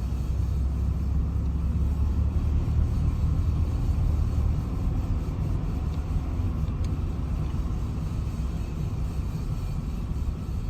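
Car rolling forward with a steady metallic scraping from a small stone wedged in the brake, over low road rumble.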